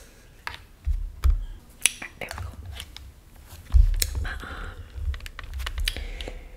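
Handling noise on the microphone: scattered sharp clicks and taps over low thumps and rumble, with the loudest thump about four seconds in.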